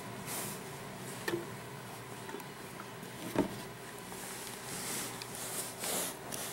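Cloth rag rubbing mink oil into a leather jacket: repeated soft swishing strokes, with two light knocks, one about a second in and a louder one past the middle.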